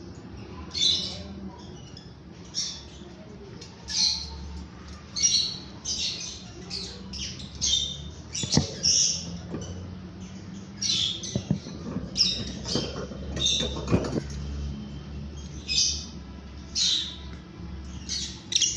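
Pet lovebirds giving short, shrill squawking calls, one about every second, with a few sharp knocks in the middle.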